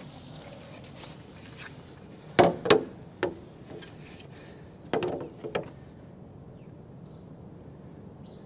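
Two clusters of sharp knocks, about two and a half seconds in and again about five seconds in: a box level being set down and shifted against a new window's frame while it is checked for level.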